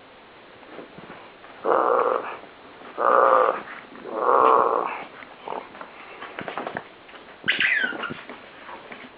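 Dog growling in three rough bursts, each under a second long, then a brief high-pitched squeal that rises and falls, about two-thirds of the way through.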